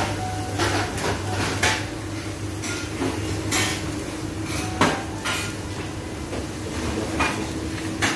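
Irregular clinks and knocks of cups, dishes and utensils being handled at a drinks-shop counter, over a steady low hum.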